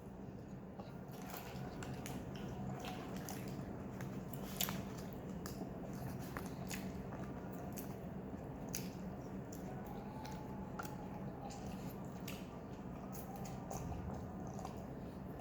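A person chewing and biting into a fried spicy chicken wrap, with scattered soft crunches and wet mouth clicks over a steady low hum.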